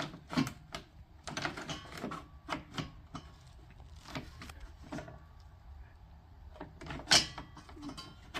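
Hands and tools working on a mini bike's parts: scattered light clicks and knocks, with one louder knock about seven seconds in.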